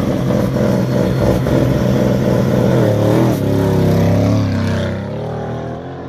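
Mercedes-AMG GT C Roadster's twin-turbo V8 exhaust as the car pulls away and drives past. The engine note shifts and wavers in pitch about halfway through, then fades as the car moves off.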